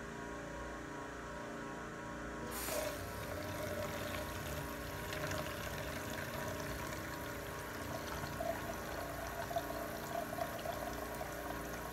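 Electronic kitchen faucet switching on about two and a half seconds in, its water stream then pouring steadily into a plastic beaker over a low steady hum.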